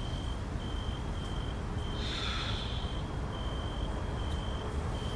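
Quiet night ambience: a cricket chirping in short, evenly spaced high pulses, with a single breathy exhale about two seconds in.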